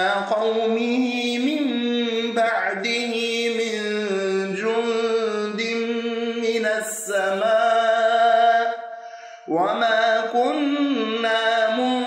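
A man reciting the Quran in a melodic, drawn-out tajweed style, holding long notes. About nine and a half seconds in he pauses briefly for breath, then begins a new phrase.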